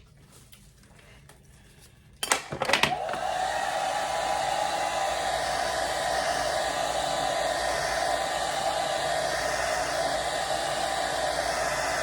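Handheld hair dryer switched on about two seconds in with a couple of clicks, then blowing steadily, heating the freshly glued lace of a wig to set the glue.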